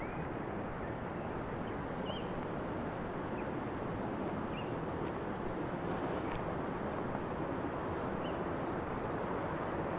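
Steady outdoor background rush with a few faint, short, high bird chirps scattered through it.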